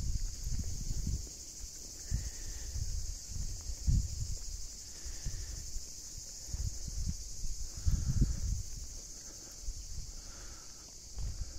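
A steady high-pitched chorus of insects shrilling in the summer forest, with irregular low thumps of footsteps on the road underneath.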